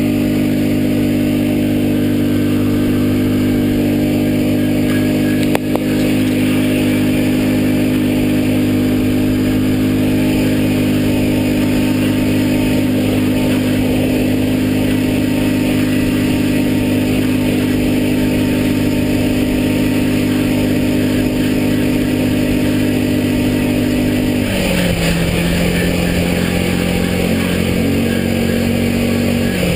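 Hytrack HY-920 buggy's 450 cc engine running at steady revs while driving, heard from the cockpit. Its note drops to a lower pitch about 24 seconds in, and again right at the end.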